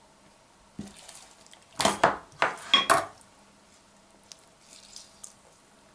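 Kitchen dishes and utensils clattering: a quick run of knocks about two seconds in, one with a short ringing tone.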